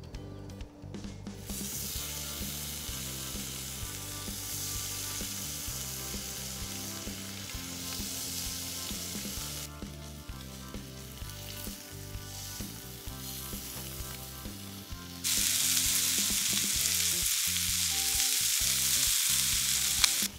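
Scallops sizzling as they fry in a pan with no added oil. The sizzle eases off about ten seconds in and comes back louder about five seconds later, over background music.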